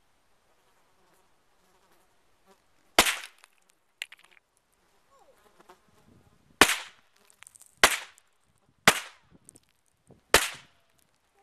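Five single shots from a GSG-5 .22 rimfire semi-automatic rifle: one about three seconds in, then after a pause four more roughly a second apart, each a sharp crack with a short tail. Insects buzz faintly between the shots.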